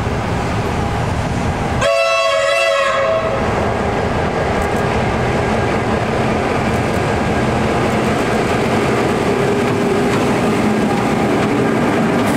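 Victorian Railways T-class diesel locomotive T342 sounds its horn once, a blast of about a second and a half some two seconds in, as it leads a second T-class and carriages. Around it the diesel engines run steadily under load and the wheels rumble on the rails as the train draws near and passes close by.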